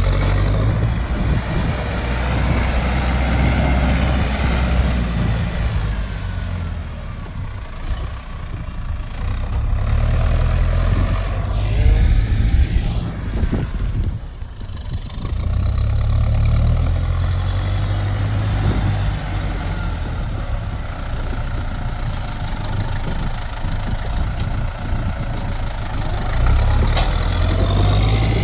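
A vehicle engine running steadily for the whole stretch, its low rumble swelling and easing in loudness.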